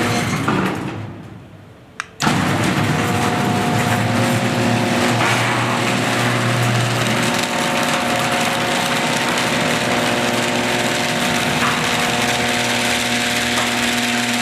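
Genie garage door opener's motor running a door with a steady hum, dying away in the first second or two. A sharp click comes about two seconds in, and the opener starts again and runs steadily.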